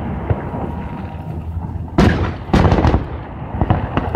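Fireworks shells bursting in the air: two loud bursts about half a second apart, about two seconds in, then a quick run of sharp crackles near the end.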